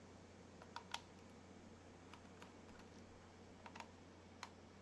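Near silence with a few faint, scattered clicks and ticks: a small screwdriver working screws out of a laptop's plastic bottom case. A low steady hum lies underneath.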